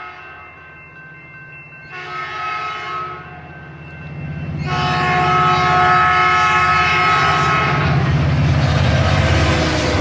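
Train horn sounding a chord over a low rumble: held softly at first, a louder blast about two seconds in, then a long loud blast from about five seconds in.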